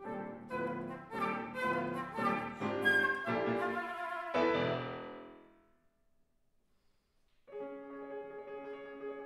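Classical flute and piano music: a busy passage ends in a chord that rings away about five seconds in. After a pause of about a second and a half, the flute enters on a long held low note.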